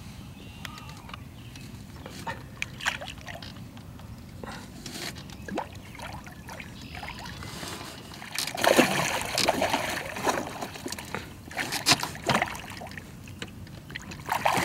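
Water splashing and sloshing beside a small boat as a hooked fish is fought to the boat. The splashing is loudest about nine seconds in, with another flurry a few seconds later.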